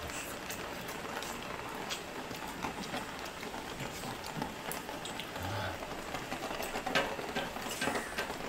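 Steady rain falling outdoors, a continuous hiss with scattered sharp drip taps.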